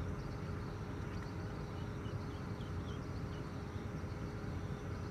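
Steady low outdoor rumble with a constant hum running through it, and a few faint short high chirps about two to three seconds in.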